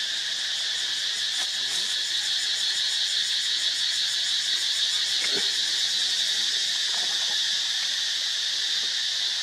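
Steady chorus of buzzing insects, a dense high-pitched drone with a fine rapid pulse that holds level throughout.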